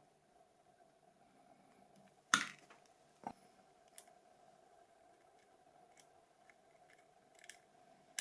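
A few light, separate clicks and taps over faint room tone with a steady low hum; the loudest tap comes a little over two seconds in.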